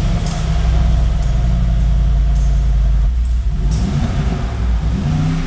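Mercedes-AMG G63's 4.0-litre twin-turbo V8 running at a steady idle, then revved a couple of times near the end, its pitch rising and falling.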